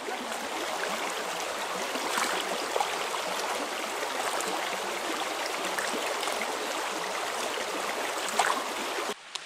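Shallow woodland stream running over a stony bed: a steady rush of water, with a few faint splashes as water is poured from a bottle into a filter bag.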